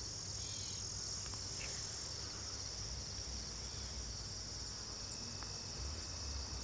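Evening chorus of crickets, a steady high-pitched trilling that does not let up, over a faint low rumble.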